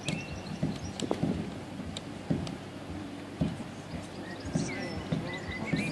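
Outdoor crowd ambience with a low rumble, scattered soft thuds and knocks at irregular intervals, and a few faint short high chirps.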